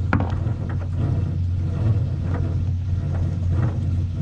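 Steady low drone of a running engine, with a few light clicks and knocks over it.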